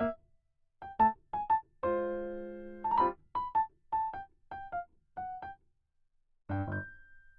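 Background music: a light, bouncy keyboard tune of short separate notes, a held chord a couple of seconds in, and a last note fading out near the end.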